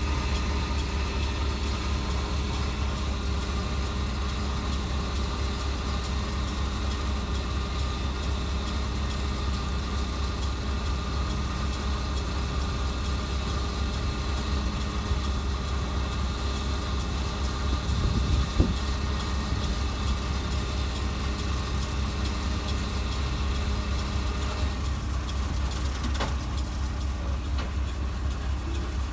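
John Deere 4066R tractor's diesel engine running steadily while pulling a hay baler, with one louder thud about 18 seconds in and a few light clicks near the end.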